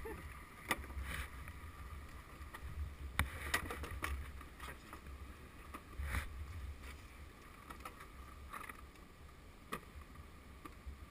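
Scattered clicks and knocks of hands working at an ATV's plastic bodywork, over a low, gusting wind rumble on the microphone.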